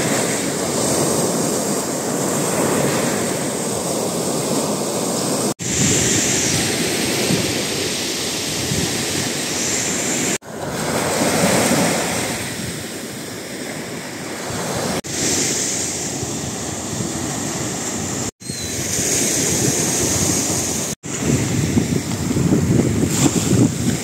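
Sea waves breaking and washing up onto a sandy beach, with wind buffeting the microphone. The surf sound cuts out briefly five times where clips are joined.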